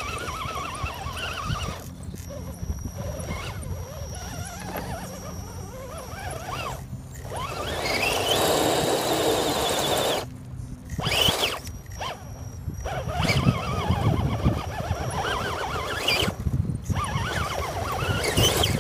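Axial SCX10 RC crawler's brushed 35-turn electric motor and geared drivetrain whining under load as it climbs, the pitch rising and falling with the throttle. It stops and starts again several times.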